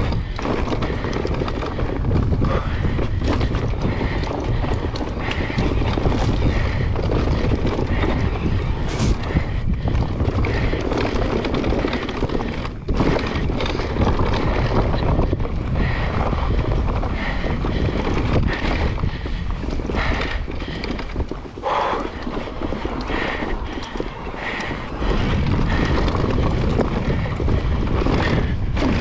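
Wind buffeting the microphone over the tyre rumble of a Decathlon Stilus electric mountain bike descending a dirt forest trail, with frequent short knocks and rattles from the bike over bumps.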